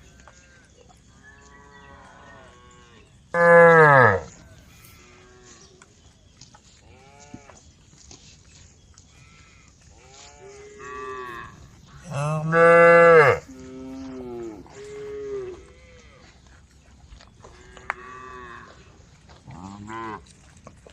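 A herd of cattle mooing, several cows calling one after another at different pitches. Two loud, long moos come about three seconds in and about twelve seconds in, with fainter moos in between.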